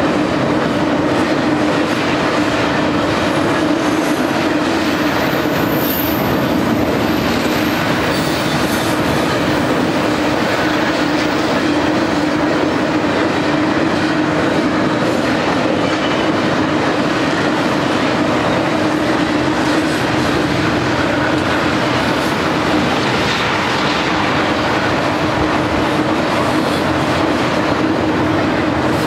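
Intermodal freight train's well cars loaded with highway trailers rolling past at steady speed: a continuous, unchanging wheel-on-rail rumble and clatter with a steady low tone running under it.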